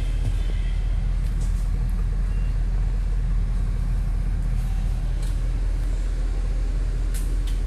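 Steady low hum of the Ford E350 van's engine idling, heard from inside the passenger cabin, with a few faint clicks near the end.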